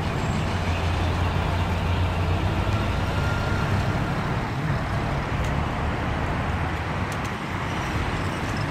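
Road traffic at an intersection: a heavy truck's engine running close by, a steady low hum that weakens after about four seconds, over a steady haze of traffic noise.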